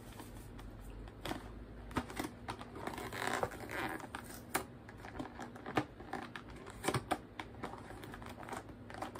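Fingers and nails working at a cardboard gift box while trying to open it: scattered sharp taps, clicks and scratches on the cardboard, with a short rustle of packaging about three seconds in.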